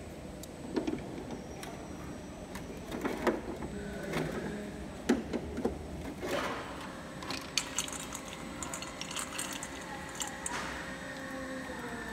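Irregular hard plastic clicks and knocks as black plastic clips are pressed and tapped onto the flanges of a plastic baluster mold to lock its sections together.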